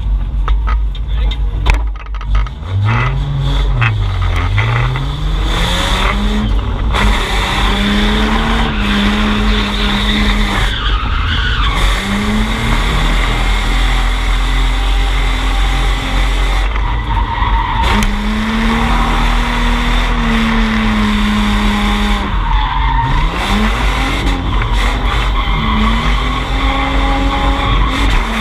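Drift car engine revving hard, its pitch climbing and dropping repeatedly as the throttle is worked, with the tires skidding and squealing through a drift run.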